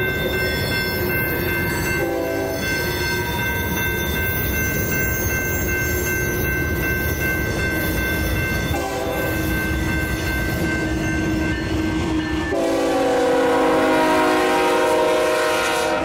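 Electronic railroad crossing bells ring steadily, among them a Safetran Type 3 high-tone bell, over the rumble of passing trains. The approaching BNSF GE ES44C4's Nathan K5HL five-chime horn sounds a short blast about two seconds in and a brief one near the middle, then a long, loud blast for the last few seconds as the locomotive reaches the crossing.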